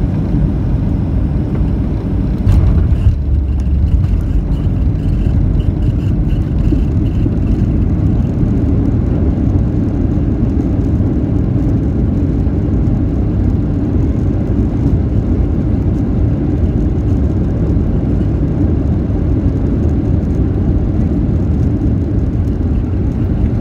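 Cabin noise of a Boeing 737 airliner landing, heard from over the wing: the main wheels touch down about two and a half seconds in with a brief heavy rumble, then a steady roar as the jet rolls out and slows on the runway with its spoilers raised.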